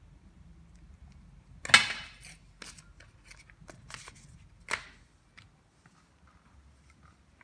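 Unboxing handling noise: a sharp clack about two seconds in, then rustling of paper leaflets and light knocks on a glass table top. Another sharp clack comes near five seconds.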